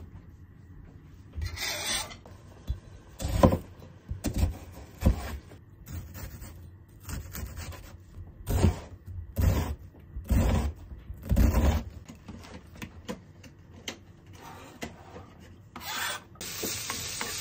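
Kitchen knife working on a cutting board: a scrape, then a run of separate chops through an onion, each a knock on the board. Near the end the chopped vegetables are scraped off the board into a frying pan and start to sizzle.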